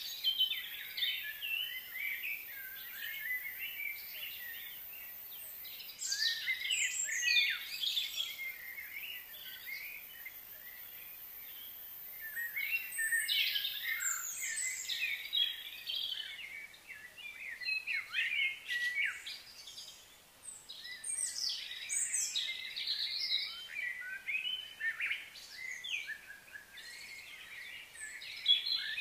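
Birds chirping and calling: a busy run of short, high, sweeping notes from several birds, with brief lulls now and then.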